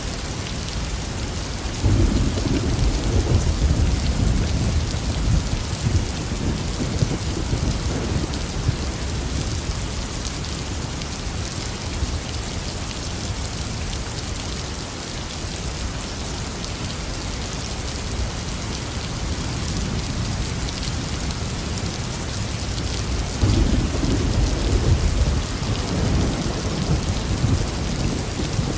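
Heavy rain falling steadily, with two rolls of thunder: a rumble starting about two seconds in that lasts several seconds, and another near the end.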